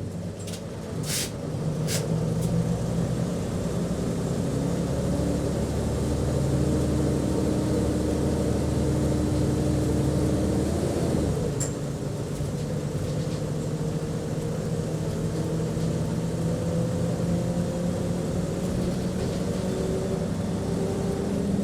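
A bus engine drones steadily, heard from inside the passenger cabin as the bus drives. It gets louder in the first couple of seconds, with a few short hisses and clicks. The engine note shifts about halfway through and slowly rises again near the end.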